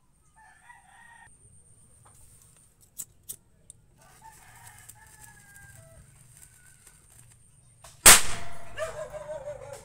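Two lighter clicks about three seconds in, then a mini triangle firecracker going off with one sharp bang about eight seconds in. A rooster crows in the background, most clearly after the bang.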